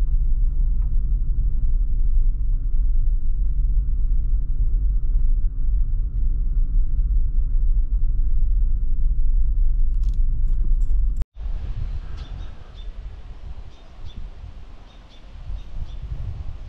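Steady low road rumble of a vehicle on the move for about eleven seconds. It cuts off abruptly and gives way to quieter outdoor ambience with faint, repeated bird chirps.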